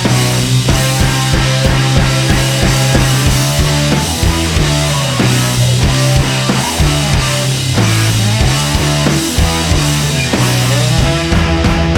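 Loud rock background music with a steady drum beat, bass and sustained instrument notes.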